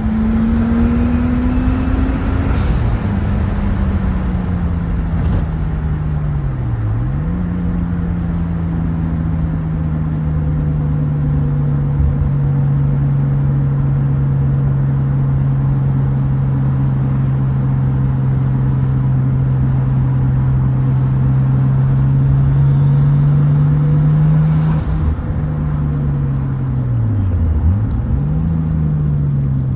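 Nissan RB25DET NEO turbocharged 2.5-litre straight-six engine running while driving. Its note climbs briefly at first, dips sharply at gear changes a few seconds in, around 7 seconds in and near the end, and holds nearly steady in between.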